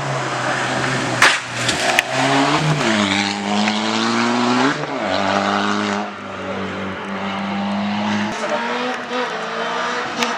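Rally car engine at high revs on a special stage, its pitch dropping and climbing again twice with gear changes and throttle lifts, then holding steady. A couple of sharp cracks sound about a second in.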